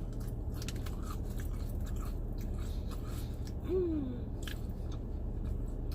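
Close-up chewing and biting of crunchy Popeyes onion rings, with scattered crisp crunches, and a short falling hum of the voice about four seconds in.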